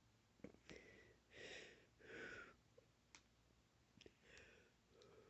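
Near silence, with a few faint clicks and four soft, short breathy sounds.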